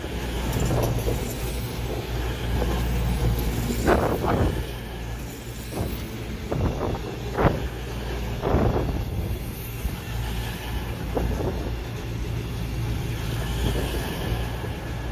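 CrossCountry Voyager diesel multiple unit moving slowly along the platform, its underfloor diesel engines running with a steady low hum. A string of sharp clicks and knocks comes through it, loudest about four and seven and a half seconds in.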